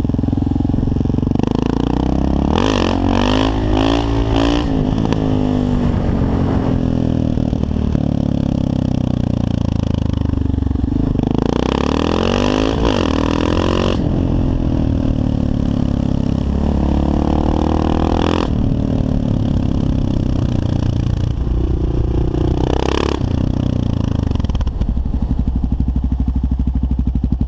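Kawasaki KLR650's single-cylinder four-stroke engine running under way, its pitch climbing and dropping several times as the rider revs it up and eases off through the gears.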